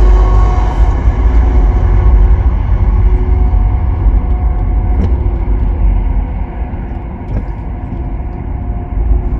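Car moving slowly, heard from inside the cabin: a steady low engine and road rumble. It grows quieter for a couple of seconds near the end.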